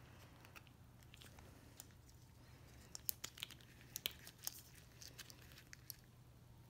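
Faint, irregular snips and crunches of dull scissors working at a chainsaw's starter pull cord on its plastic recoil pulley, thickest around the middle, the blades chewing at the cord rather than cutting cleanly.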